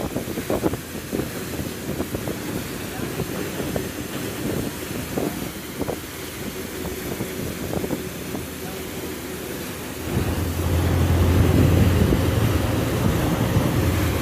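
Yacht's diesel engines running with churning propeller wash and wind buffeting the microphone. About ten seconds in, the engines get louder and a deep, steady drone takes over.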